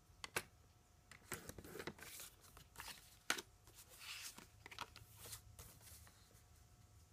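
Cardstock being handled on a paper trimmer: soft rustles and sliding scrapes of card, with a few sharp clicks, the sharpest about a third of a second in and just over three seconds in.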